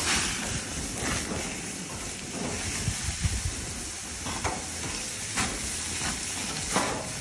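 Marinated carne asada steaks sizzling on the hot grates of a gas grill as they are turned over with tongs, with about five brief louder moments as steaks are flipped.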